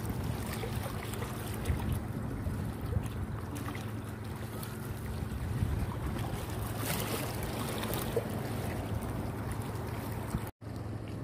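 Wind rumbling on a phone microphone over a steady low hum, with the sea washing against a rock breakwater. The sound cuts out for a moment near the end.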